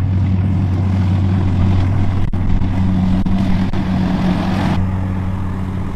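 Combine harvester engine running, a steady low drone. A single sharp knock comes a little over two seconds in, and a hiss joins the drone for a couple of seconds before cutting off.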